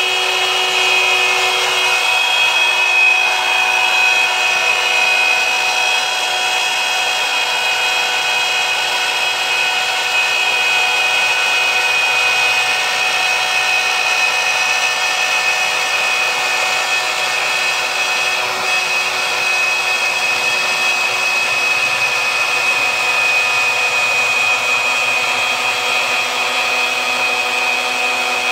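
Wood router in a Maslow CNC sled running at full speed with a steady whine, its bit cutting through plywood.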